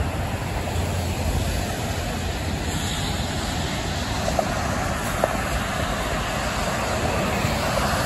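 Steady rushing noise of heavy highway traffic, tyres hissing on wet pavement as trucks and cars pass. Two short ticks sound about four and five seconds in.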